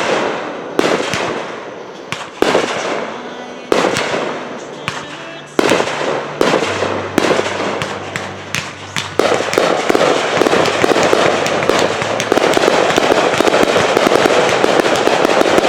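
Fireworks going off: sharp bangs about every second or so, each fading away, then from about nine seconds in a dense, continuous crackling of many bursts.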